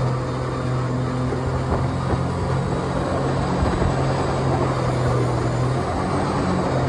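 Mini jet boat's engine and water jet running steadily while the boat cruises. The steady engine note shifts slightly near the end.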